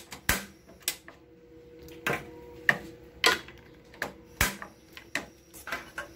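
A series of separate sharp clicks and knocks from a wok being handled on a gas stove, irregularly spaced about half a second to a second apart.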